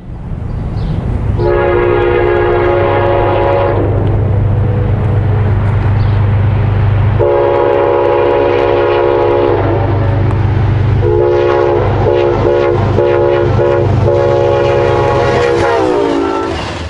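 Train air horn sounding a chord in a series of long blasts, the last one broken by short gaps, over the loud rumble of a train passing close by. The horn's pitch drops just before it cuts off near the end, as the train goes past.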